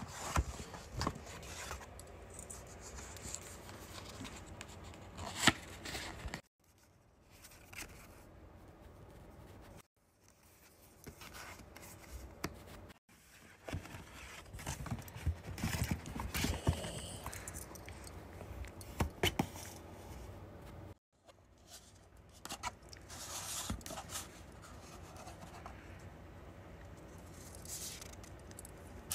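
Paper shopping bag rustling and cardboard boxes scraping and tapping as hands rummage inside it and lift out a jewellery box, with irregular crackles and sharp clicks, broken by a few short silences.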